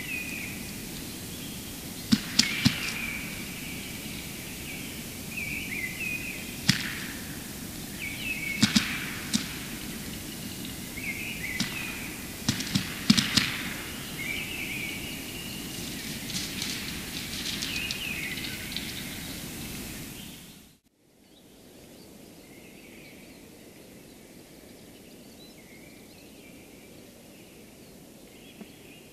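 Western capercaillie cocks displaying at a lek: repeated sharp clicks and pops in clusters, with short scratchy phrases between them. The sound cuts off about two-thirds of the way through, leaving a quieter background with faint calls.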